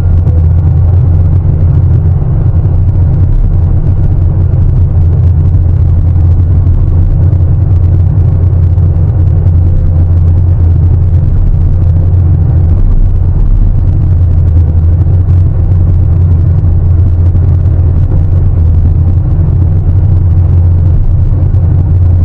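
Large diesel excavator's engine running under working load: a loud, steady, deep rumble.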